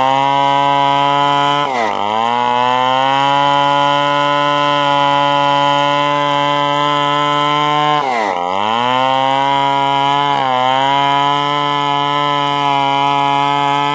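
Stihl 070 single-cylinder two-stroke chainsaw running at high revs while sawing wood. Its pitch drops sharply and recovers about two seconds in, again near eight seconds and once more just after ten, as the engine bogs under load in the cut.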